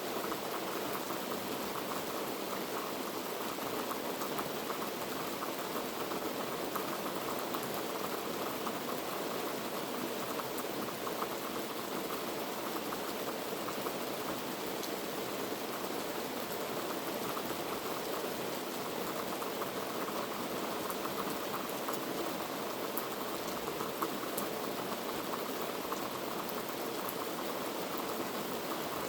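Heavy rain falling steadily, a dense even patter of drops hitting surfaces.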